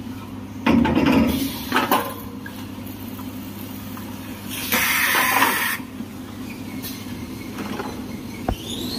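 Paper rewinding machine running with a steady low hum, broken by short hissing bursts about a second in, near two seconds and around five seconds, and a single sharp click near the end.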